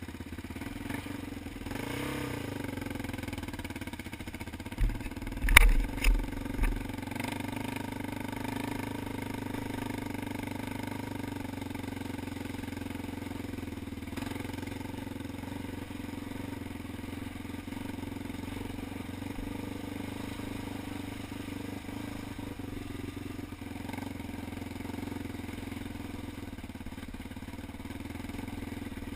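ATV engine running steadily under way, with a short change in pitch near the start. A few loud thumps come about five to seven seconds in.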